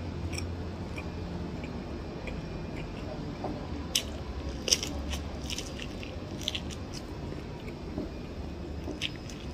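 Biting kernels off a cob of corn and chewing them, with a cluster of crisp crunches and clicks about halfway through and a few more near the end.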